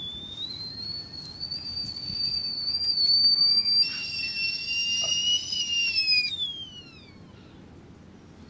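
A high, steady whistle that slowly rises in pitch. About four seconds in, a second, lower tone joins it with a hiss, then both fall in pitch and fade out near the seven-second mark.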